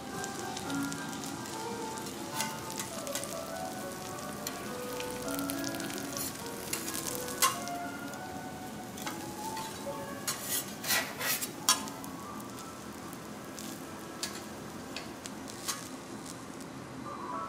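Food sizzling steadily on a teppanyaki griddle, with sharp clicks of metal utensils against the hot plate now and then, several in quick succession about ten to twelve seconds in.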